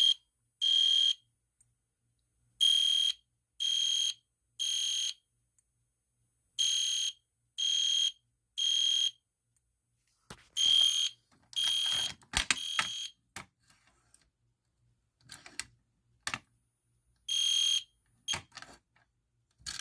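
EST Genesis fire alarm horn sounding a high electronic tone in the temporal code-3 pattern: three half-second beeps, a pause, then three more, repeating. About two-thirds of the way through the pattern breaks up into a few irregular short blips mixed with clicks.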